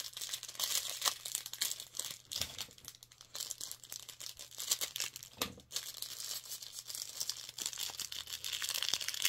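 Crinkly packaging rustling and crackling in the hands as a small parcel is handled and unwrapped, with one louder crackle about five and a half seconds in.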